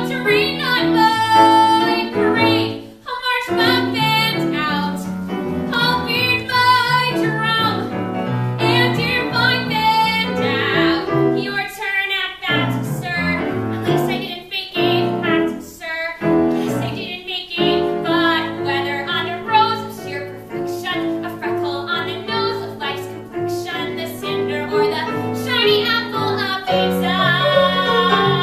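A solo female voice singing a Broadway show tune with a wide vibrato over piano accompaniment, with short breaks between phrases.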